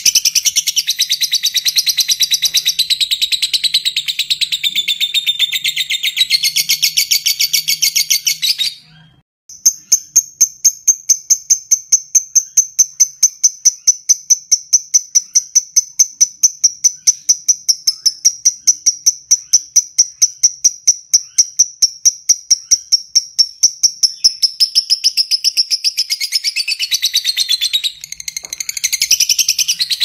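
Fischer's lovebird giving its long 'ngekek' trill: a dense, rapid high chatter, a short break about nine seconds in, then a long run of fast, evenly repeated high notes. Looser chattering returns near the end.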